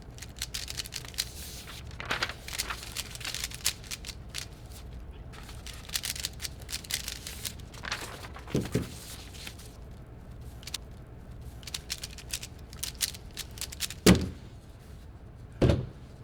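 Rubik's cube being turned quickly, a stream of sharp plastic clicks in irregular clusters. Two heavier thumps come near the end.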